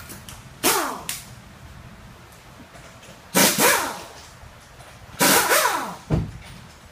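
Pneumatic air tool fired in several short bursts under a car on a lift. Each burst starts sharply and winds down with a falling whine.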